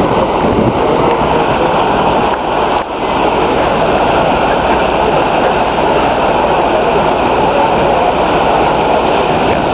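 Steady rushing noise of wind and water on the open deck of the moving Island Queen cruise ship underway.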